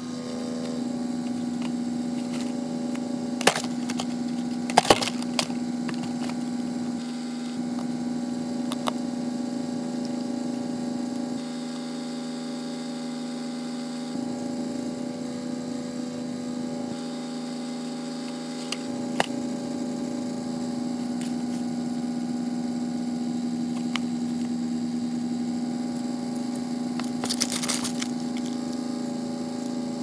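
A crow pecking at and tugging a cardboard box among loose paper: a few sharp taps and knocks, and a burst of scraping and rustling near the end, over a steady electrical hum.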